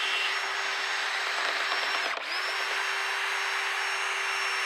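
Power drill running steadily, spinning a rotary brush through a dryer vent duct to clear lint from the line and its elbows. The motor hum dips and drops in pitch briefly about two seconds in, then picks back up.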